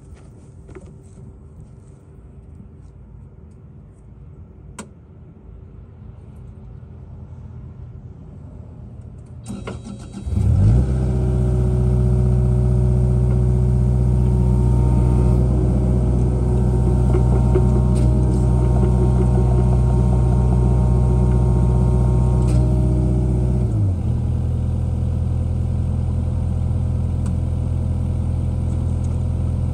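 The diesel engine of a Kubota KX057-4 mini excavator starts about ten seconds in and then runs steadily. About two-thirds of the way through the engine speed drops and it settles into a lower, quieter run.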